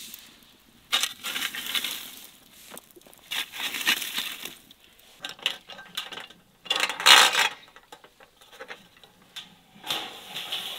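Raw lamb pieces handled on a metal tray: several short bursts of metal clinking and scraping.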